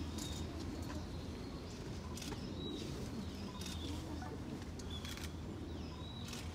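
Small birds chirping in short high calls, with about five sharp clicks scattered through and a steady low hum underneath.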